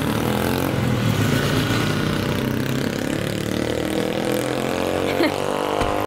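Isuzu MU-7 SUV's diesel engine idling steadily, with one brief rising squeak about five seconds in.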